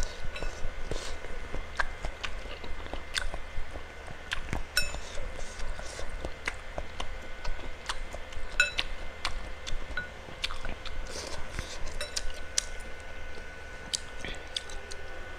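Close-up chewing of bakso meatballs in chili broth: wet mouth clicks and smacks all through. About five and nine seconds in there are two ringing clinks of a metal fork against the ceramic bowl.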